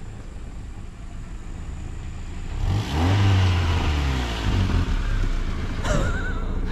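Land Rover Freelander SUV driving slowly up a sandy forest track toward the listener. Its engine and the tyres on the sand grow louder as it comes close, loudest from about three seconds in.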